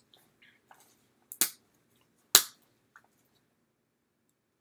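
Round clear plastic bath bomb case being popped open by hand: two sharp plastic cracks about a second apart, with a few faint clicks and rustles around them.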